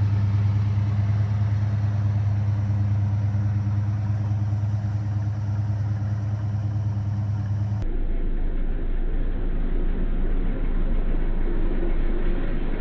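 1974 Chevy Nova's engine idling with a steady hum. About eight seconds in it cuts to a duller, rougher recording of the engine running.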